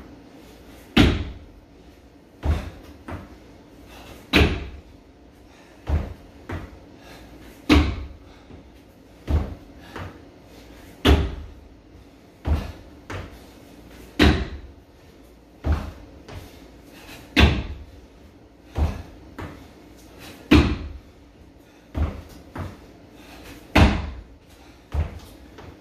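Feet landing on a homemade plywood plyometric box during box jumps, a thud about every second and a half. Louder landings on the box alternate with softer thuds as the feet step back down to the rubber-matted floor.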